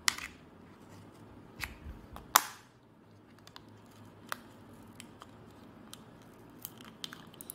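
Hands handling a roll of washi tape and a craft knife on a tabletop: a few sharp clicks, the loudest about two and a half seconds in, then scattered light ticks and scratches as fingers work at the roll.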